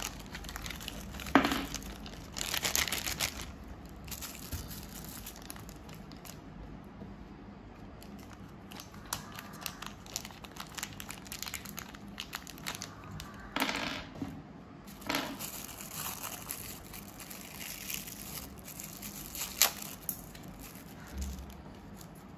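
Thin clear plastic zip bags crinkling in bursts as they are opened and unwrapped by hand, with a couple of sharp clicks of small parts being handled.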